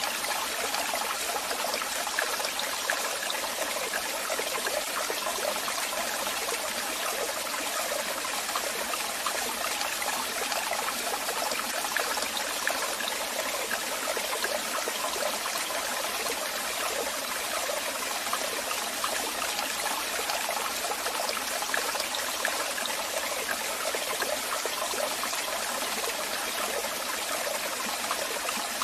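Waterfall: falling water making a steady rushing hiss that holds without change.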